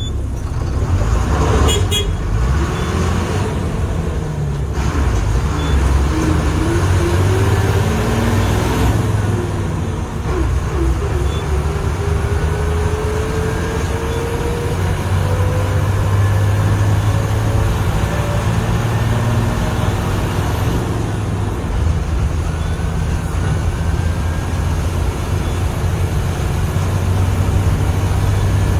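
Ashok Leyland bus's turbocharged Hino diesel engine running with a steady low rumble. A thin turbo whistle rises slowly in pitch over several seconds, and a fainter one rises again later.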